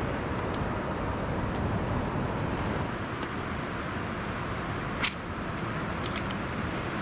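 Steady rumble of road traffic on the elevated road bridges over the river, with a few light clicks and a sharper tap about five seconds in.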